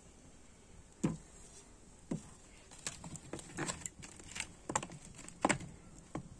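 Irregular sharp clicks and knocks, sparse at first and coming thick and fast from about three seconds in: a wood fire crackling under an iron sadj griddle while firewood is pushed in beneath it.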